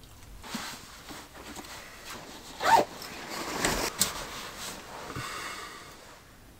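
Fabric rustling and a zipper being pulled, with fine ratcheting from the zipper teeth late in the stretch. There is also one short, louder sound that falls in pitch about two and a half seconds in.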